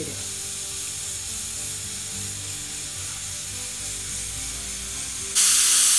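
Spatula scraping and stirring grated coconut and spices in a nonstick frying pan. About five seconds in, a pressure cooker whistles with a loud hiss of steam lasting just over a second, the sign that the beef in the cooker has come up to pressure.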